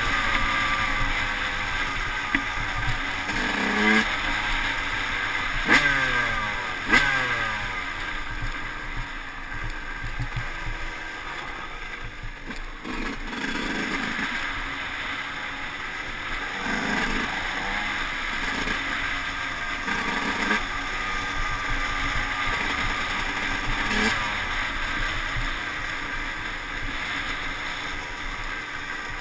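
Yamaha YZ125 two-stroke single-cylinder engine riding off-road, its revs rising and falling again and again as the throttle opens and closes through the gears, with a steady rushing noise and a few sharp knocks from the bumps.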